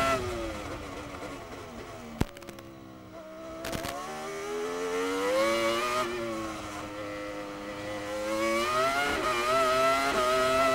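Acer-badged Ferrari V10 of a Prost AP04 Formula One car, heard onboard. The engine pitch falls as the car slows for a corner, with a sharp crack about two seconds in and another near four seconds. It then climbs again as the car accelerates away, wavering briefly near the end before holding steady at high revs.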